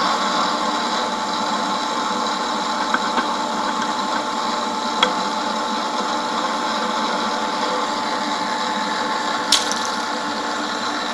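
Milling machine running steadily with a tapping head, tapping threaded holes in a steel table. A few light clicks sound partway through, and a sharp metallic click comes near the end.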